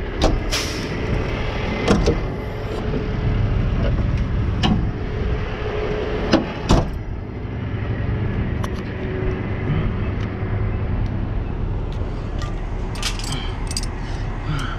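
Truck engine idling steadily, with sharp metallic clanks of tools a few times in the first seven seconds and lighter clinking near the end.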